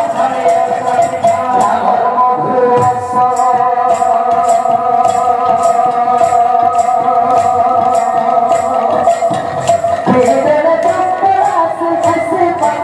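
Kirtan devotional music: held, sustained melodic notes and singing over a steady beat of tambourine jingles, about two strokes a second. The melody changes near the end.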